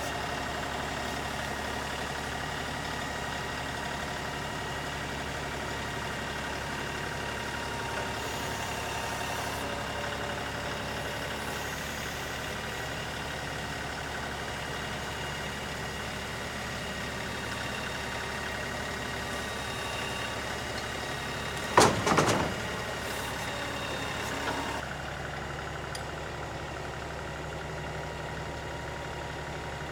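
LS XR3135 compact tractor's diesel engine running steadily. About two-thirds of the way through there is one sharp loud knock, followed by a couple of smaller rattles, and after that the sound is slightly quieter and duller.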